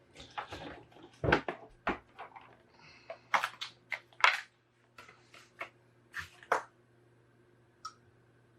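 Old thermal paste being wiped and scrubbed off with isopropyl alcohol: a series of irregular short rubbing strokes that stop about six and a half seconds in, then a single light click near the end.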